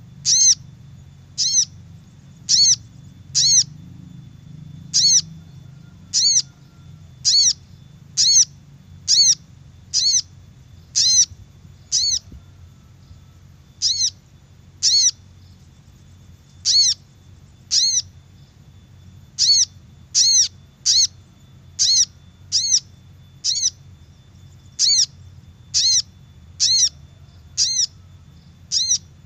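Lure recording of a crimson sunbird's call: short, sharp, high chips repeated about once a second, with a brief pause near the middle.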